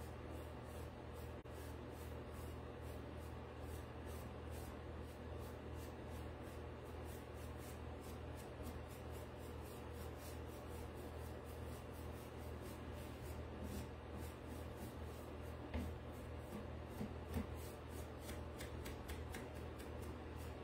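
Faint dry rubbing of a small stiff paintbrush dry-brushing back and forth over a painted wooden piece, over a steady low hum, with a few light knocks near the end.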